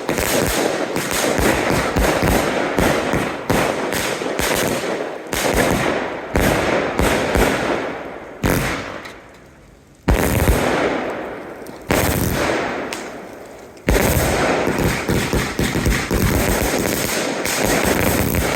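Consumer fireworks going off in rapid volleys: a dense run of bangs and crackle, then three single booms each fading out, then dense firing again.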